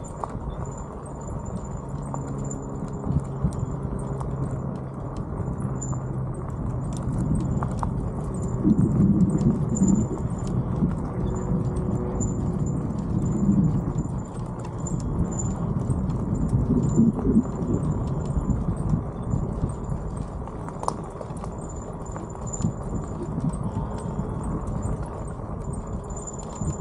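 Wind buffeting a handlebar-mounted camera and bicycle tyres rumbling over a rough road, with uneven bumps and swells. In the first few seconds a utility vehicle's engine runs past.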